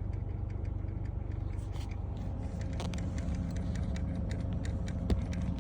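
Faulty air-mix (blend door) motor in a Honda N-ONE's heater and air-conditioning unit making an abnormal noise: rapid, irregular clicking over a steady low hum, with a thin steady tone joining about halfway and one sharper knock near the end.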